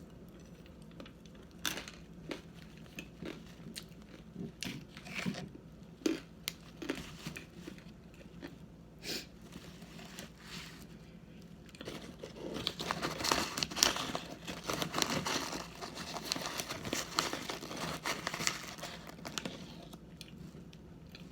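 Crinkling and rustling of the arrowroot starch's packaging as it is handled, mixed with small crunches of the powdery starch. Sparse short clicks at first, then about twelve seconds in, dense crinkling for about eight seconds.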